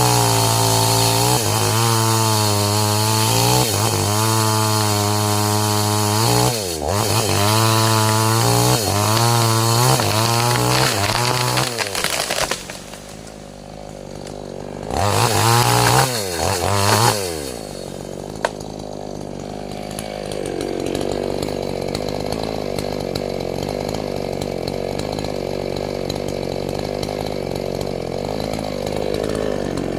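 Two-stroke chainsaw cutting into a waru (sea hibiscus) trunk at high revs, its pitch sagging and recovering several times under load. About twelve seconds in it drops off, is revved twice briefly, then gives way to a quieter, steady sound for the rest.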